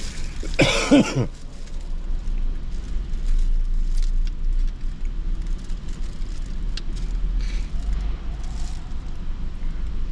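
A steady low rumble runs underneath. About a second in there is one short human vocal sound that falls in pitch, and later a few faint clicks.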